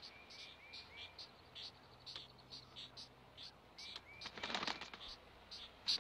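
Pileated woodpecker nestlings begging: a steady series of short high chirps, about three a second, with a louder rasping burst about four seconds in.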